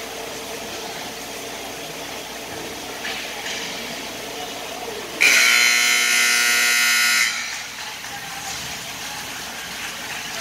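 Ice-rink scoreboard horn sounding once, a single steady tone that starts suddenly about halfway through and cuts off after about two seconds, marking the end of the third period as the game clock runs out.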